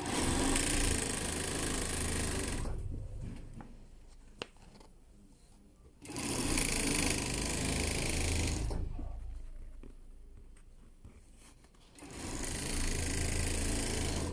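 Multi-needle curtain tape sewing machine running in three stitching runs of about three seconds each, starting roughly six seconds apart, each one fading into a pause. A single sharp click sounds during the first pause.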